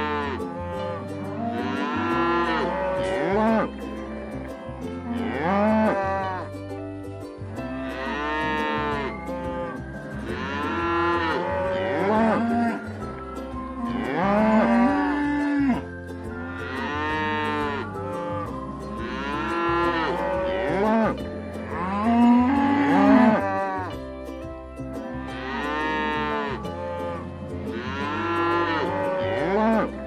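Cattle mooing over and over, about one long call every two seconds, each swelling and falling in pitch. Soft background music plays steadily underneath.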